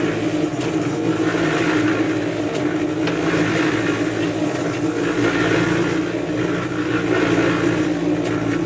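Electric cement mixer running steadily with its drum turning, mixing a batch of concrete, with a constant low motor hum.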